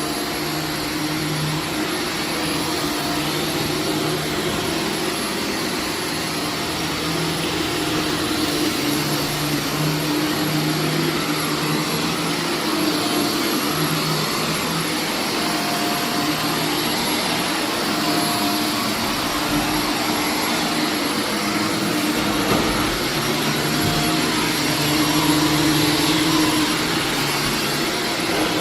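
Carpet-cleaning vacuum running steadily, its hum changing a little in pitch now and then as it is worked over the carpet.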